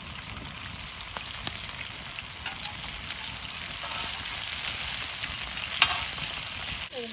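Masala-coated fish slices shallow-frying in hot oil in a wide metal pan, the oil sizzling steadily. Metal spatula and slotted skimmer clink and scrape on the pan as the pieces are turned, with the sharpest clink about six seconds in.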